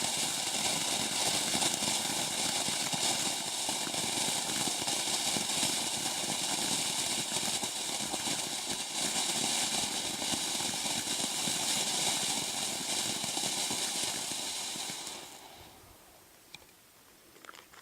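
Ground fountain firework spraying sparks with a steady crackling hiss, burning out and dying away about fifteen seconds in.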